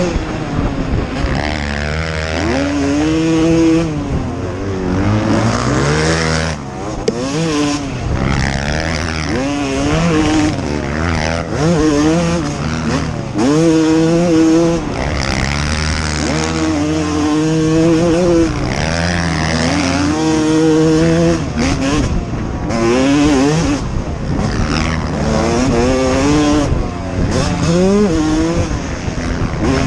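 Two-stroke motocross bike engine racing, revving up and down over and over, its pitch climbing and dropping every second or two as the throttle opens, shifts and closes, with a few longer steady pulls.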